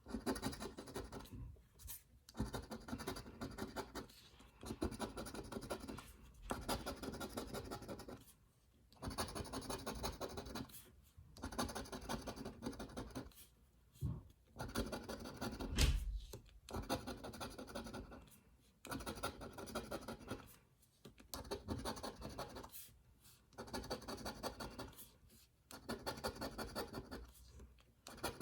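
Scratch-off lottery ticket being scraped with a handheld scratcher tool: about a dozen bursts of rapid scraping strokes, each a second or two long, with short pauses between them. One louder knock about halfway through.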